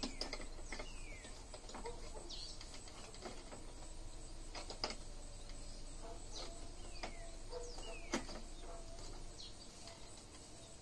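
Birds calling with short falling chirps every few seconds, over scattered light knocks and rustling as a hanging prop is handled overhead.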